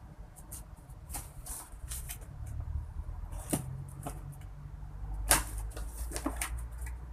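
Handling noise from a computer case being opened: scattered clicks and rustles, with two louder knocks about three and a half and five seconds in, over a low rumble.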